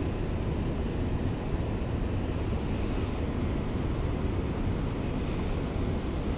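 Steady low rushing noise, heaviest in the bass, with no separate clicks or knocks.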